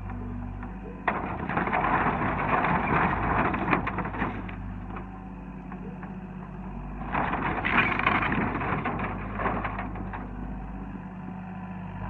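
Hyundai 60 compact excavator's diesel engine running steadily while its bucket tears apart a sheet-metal and wood-framed trailer. Crunching metal and cracking, splintering wood come in two spells, about a second in and again about seven seconds in.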